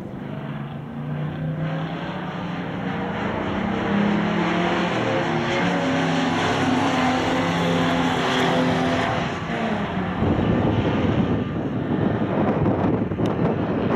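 Classic muscle car at full throttle, getting louder over the first few seconds, its engine note stepping to new pitches several times as it runs through the gears. About ten seconds in, the note gives way to a loud, rough rushing noise.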